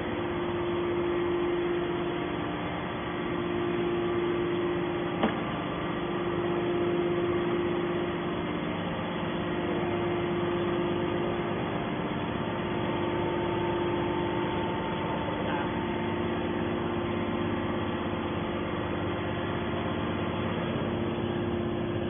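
Hydraulic scrap metal baler's power unit running steadily: a continuous mechanical hum with a steady tone, and a single click about five seconds in.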